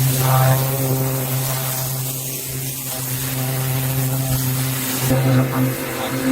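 The Mercedes Unimog 416's OM352 six-cylinder diesel engine running at a steady speed, its note shifting abruptly about five seconds in.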